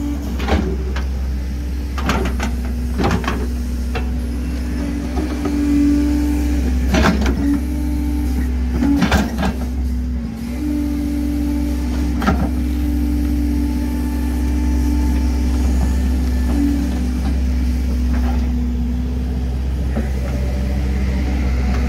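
Diesel engine of a piece of earthmoving equipment working under hydraulic load, its pitch rising and falling as it pulls. Several sharp clanks and knocks through it, as the machine strikes at a stump.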